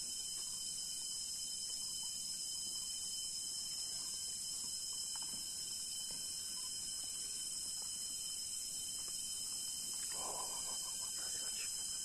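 Steady high-pitched chorus of rainforest insects, droning without a break, with a faint short sound near the end.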